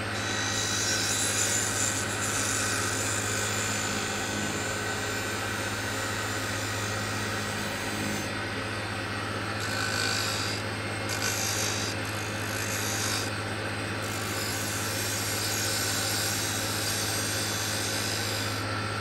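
Wood lathe running with a steady motor hum while a hand-held turning tool cuts the spinning magnolia wine-bottle blank at the neck bead, making a scraping, hissing cut. The cut comes in short passes, easing off briefly a few times in the second half.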